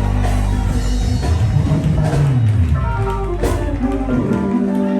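Instrumental band music with a deep bass line, drums and guitar, playing between the preacher's lines.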